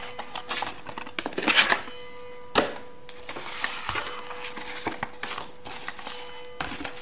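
Stiff cardboard box inserts being handled: card rustling and scraping against card, with scattered light knocks and one sharper click about two and a half seconds in.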